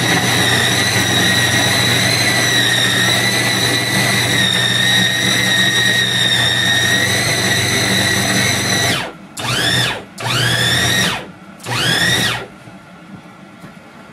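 Small electric food chopper (press-down mini blender) running with a steady high motor whine as it grinds raw fish, eggs and flakes into a paste. After about nine seconds it stops, is pulsed three more short times with the motor spinning up each time, and then goes quiet.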